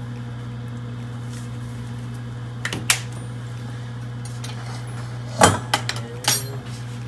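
Kitchen utensils clinking and knocking on the counter and pot: a couple of light clicks about three seconds in, then louder knocks at about five and a half and six seconds. A steady low hum runs underneath.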